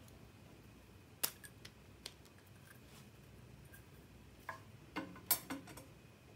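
Small sharp clicks and taps of a plastic lipstick tube and its cap being handled and opened: one click a little after a second in, then a quick cluster of clicks around five seconds in, the loudest of them there.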